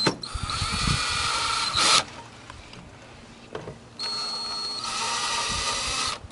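Power drill with a Phillips bit driving screws down. The motor whines steadily in two runs of about two seconds each, the second starting about four seconds in.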